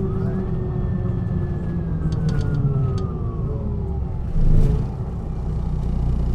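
MAN NG 313 articulated city bus running, a steady low engine drone with a whine that rises quickly, then slowly falls over about four seconds. A few light clicks come about two to three seconds in, and a short louder noise about four and a half seconds in.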